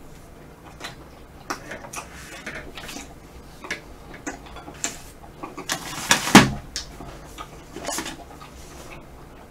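Close-miked mouth sounds of a person eating soft ice cream: scattered wet clicks and lip smacks as he chews, with one louder smack or knock about six seconds in.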